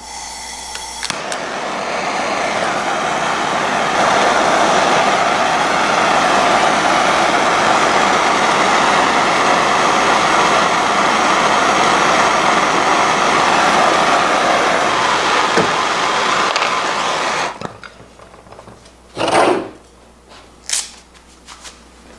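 Handheld gas blowtorch burning with a steady hiss, rising over the first few seconds and then held for about fifteen seconds while it heats a nail to melt holes through a fabric-covered panel; the flame cuts off suddenly. A couple of short sharp sounds follow near the end.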